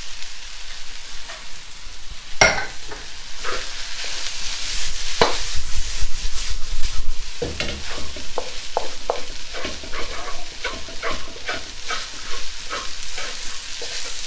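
Fried rice sizzling in a hot wok as it is stir-fried with a wooden spatula. The spatula scrapes and knocks against the wok, with the knocks coming in quick succession in the second half.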